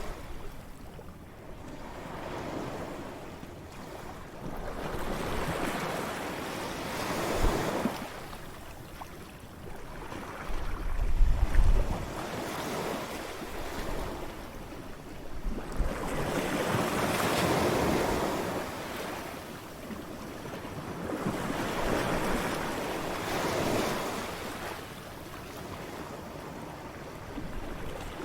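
Ocean waves breaking on a shore, the surf noise swelling and falling away every few seconds. A louder low rumble comes about eleven seconds in.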